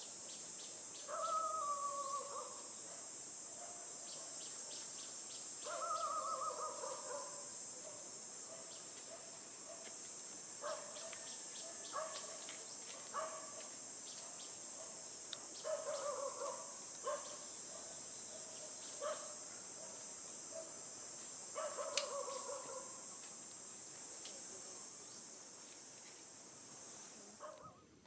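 Steady high-pitched drone of insects, stopping abruptly near the end, with short falling animal calls repeated every few seconds over it.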